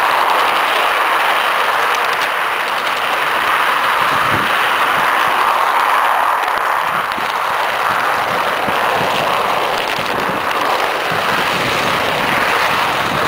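Garden railway train running along its track, heard from a camera riding on it: a steady rolling noise of motor and wheels on the rails, with occasional light clicks.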